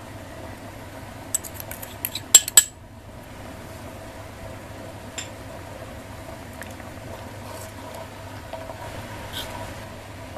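Sharp ceramic clinks, a quick run of them a second or two in, the last two the loudest and ringing, as a small ceramic bowl is tapped against a clay donabe pot to shake in chicken-stock powder. A few faint clinks follow later over a steady low hum.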